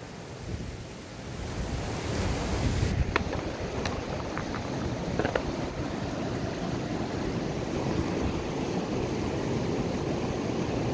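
Fast mountain stream rushing over boulders: a steady wash of whitewater. A few light clicks come between about three and five seconds in.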